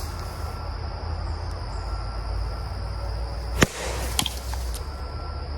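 One sharp snap or crack, followed by two lighter clicks within about a second, over a steady high drone of insects.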